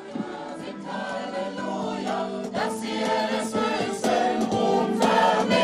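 A church music group's choir and instruments starting a hymn, the music growing louder.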